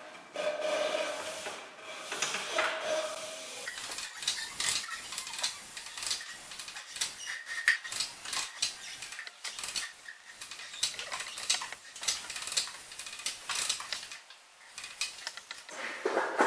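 Retractable air-hose reel being turned by hand as the rubber air hose winds onto its metal drum: rubbing in the first few seconds, then a long run of irregular clicks and knocks from the reel's mechanism and the hose against the drum.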